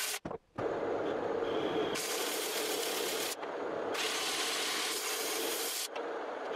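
Weiler LZ280 metal lathe running with its chuck spinning while a tool is hand-fed into the spinning workpiece. A steady machine hum sits under a cutting hiss that grows brighter in two stretches, about two seconds in and again about four seconds in.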